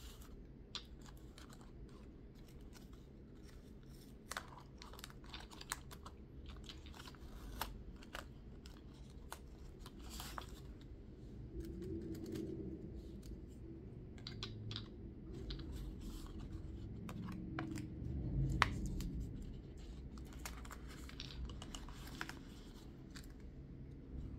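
Plastic nail-tip swatch sticks clicking and tapping as they are handled and pressed onto a card with tape, with light rustling of paper and tape. One louder knock comes about three-quarters of the way through.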